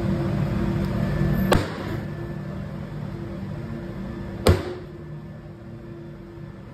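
A machine hums steadily, its low rumble dropping away about a second and a half in, with two sharp knocks; the second, about four and a half seconds in, is the loudest and rings briefly.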